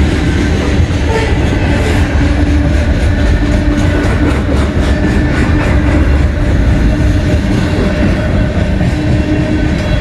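CSX freight train's covered hopper cars rolling past close by over a grade crossing: a loud, steady rumble of steel wheels on the rails, with a run of quick clicks in the middle as the trucks pass over the rail joints.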